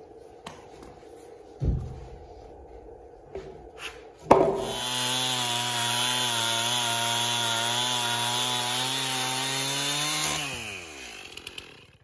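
A thump, then about four seconds in a Stihl Farm Boss chainsaw starts abruptly and runs at a steady high pitch under load, cutting through a thick wooden post. About ten seconds in the throttle is let off and the engine pitch slides down and dies away.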